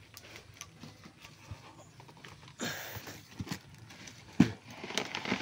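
Bubble wrap and plastic wrapping rustling and crinkling as a wrapped motorcycle wheel is pulled out of its cardboard box, with a loud crinkling burst about two and a half seconds in. A sharp knock follows near the end, with a few smaller knocks around it.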